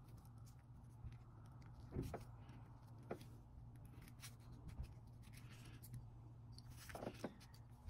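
Faint, scattered small clicks and scrapes of a metal pick working the rubber gasket in the groove of a Honda Odyssey VVT spool valve's aluminium upper housing, over a low steady hum.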